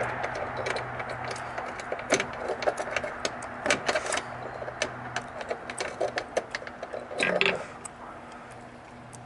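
Irregular clicks, ticks and light rattles of mounting hardware being handled: T-bolts being slid into a kayak's accessory rail and knobs screwed onto them to clamp a rod-holder bar. A louder scrape comes about seven seconds in, over a faint steady low hum.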